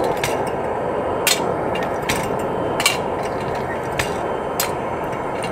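Woodgas gasifier rig running with a steady rushing noise, and sharp metallic clicks at irregular moments, about one a second.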